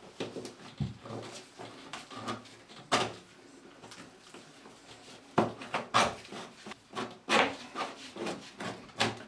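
Irregular knocks, taps and scrapes of electrical cable and cable-access rods being worked through a hole in a plasterboard stud wall, rubbing and bumping against the plasterboard edges.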